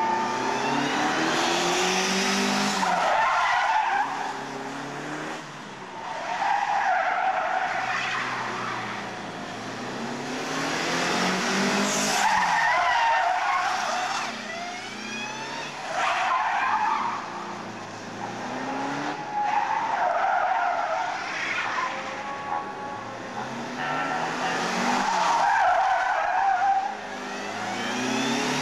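Front-wheel-drive Austin Rover saloon cars being stunt-driven, engines revving hard and tyres squealing through repeated spins and skids, in loud bursts every few seconds.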